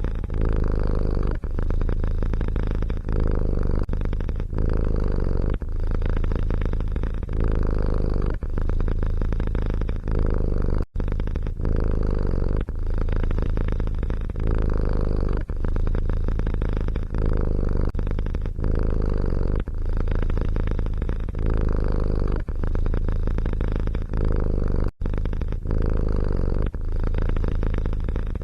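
Domestic cat purring loudly close to the microphone, a steady low rumble that pauses briefly about every second and a half with each breath. The sound cuts out for an instant twice, about 11 and 25 seconds in.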